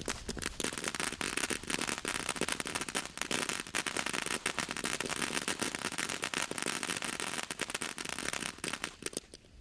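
TNT Night Treasure firework going off, a dense, rapid stream of sharp cracks that cuts off near the end.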